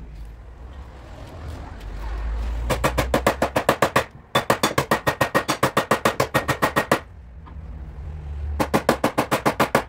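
Rapid machine hammering from a power tool working on a car door panel, about ten sharp blows a second, in three bursts. Each burst comes in after a short low hum that builds up.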